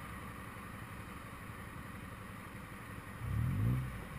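Engines idling with a low steady rumble in stopped traffic, then an engine revs up briefly, rising in pitch about three seconds in.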